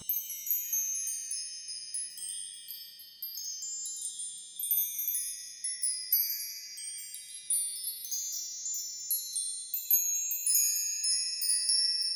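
Tinkling chimes: many high, bell-like notes struck in quick irregular succession, each ringing on and overlapping the next.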